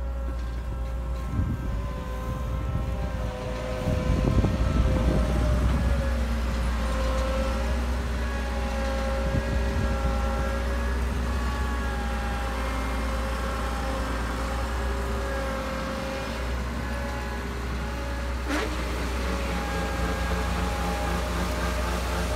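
Combine harvester running: a steady low engine drone with several whines that waver slowly in pitch, louder about four seconds in, and a single sharp click near the end.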